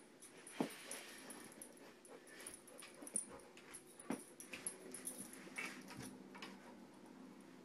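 English mastiff puppy faintly whimpering while it humps a plush rocking horse, with scattered short knocks and clicks as the horse's wooden rockers and the dog's feet shift.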